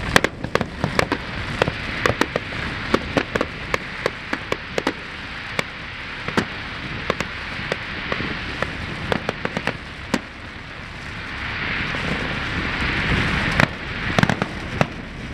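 Fireworks display going off: a rapid string of sharp bangs from bursting shells. About two-thirds through, a fizzing crackle swells up, with a few more loud bangs near the end.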